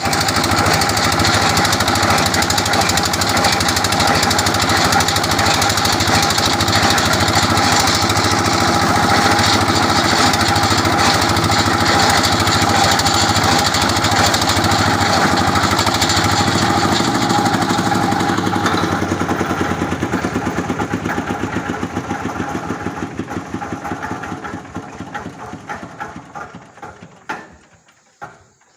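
Engine of a water-well boring rig running steadily and loudly, then shut off: about two-thirds of the way in it slows, its firing beats coming further and further apart as it runs down to a stop near the end.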